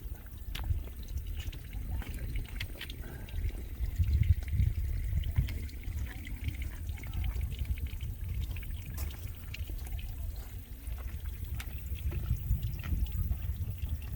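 Wind buffeting the microphone outdoors, a low gusting rumble that rises and falls, strongest about four to five seconds in.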